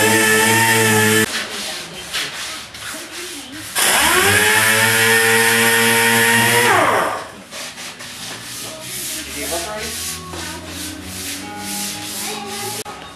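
A handheld power sander is running against a car's painted steel body panel. It cuts off about a second in, then spins up again near four seconds, runs steadily for about three seconds and winds down. Quieter scratchy rubbing follows.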